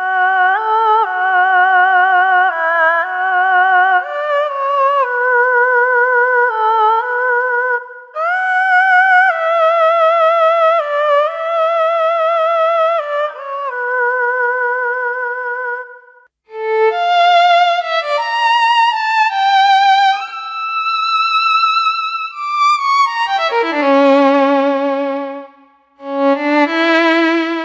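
Roland Aerophone AE-10 digital wind synthesizer played solo on its erhu patch: a melody of sustained notes with wide vibrato and sliding pitch. After a short break about sixteen seconds in, more phrases follow, ending on its violin patch with lower vibrato notes.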